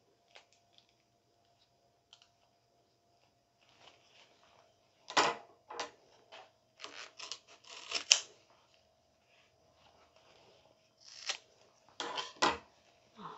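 Kitchen utensils and cookware being handled: irregular clicks and knocks, with louder clusters about five to eight seconds in and again around twelve seconds.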